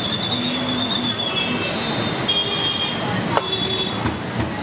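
Busy street traffic with vehicle horns sounding several times, each a high steady note lasting about a second, over a constant traffic hum. There is a sharp click about three and a half seconds in.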